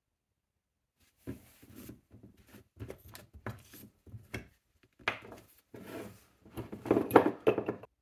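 A plastic oil bottle and a metal oil can handled by gloved hands on a workbench: irregular knocks, taps and rubbing, starting about a second in, with a denser, louder cluster of clatter near the end.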